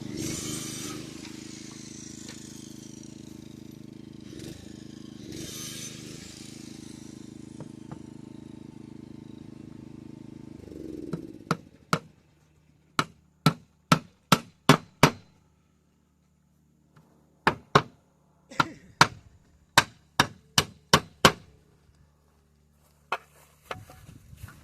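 A motor runs steadily with two brief bursts of hissing noise, then winds down and stops about eleven seconds in. Sharp blows on wood follow: a quick run of about six, a pause, about eight more, and a single one near the end.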